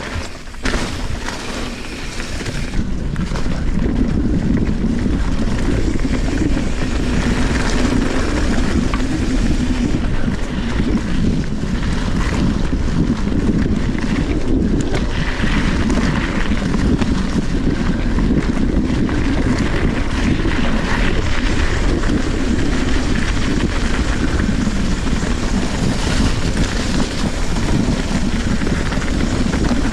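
Steady low rumble with wind buffeting the microphone, building up over the first few seconds and then holding level.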